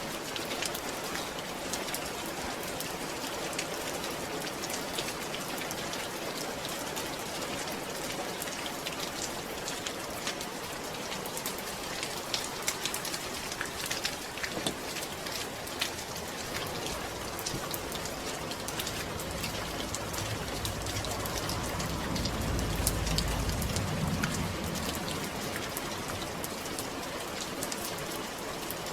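Steady rain falling, many separate drops ticking on a surface. A low rumble swells and fades about twenty seconds in.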